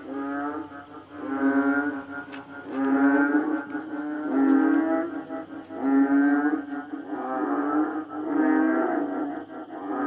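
Frogs calling in a chorus: low, mooing calls about a second long, repeating roughly every one and a half seconds, several voices overlapping.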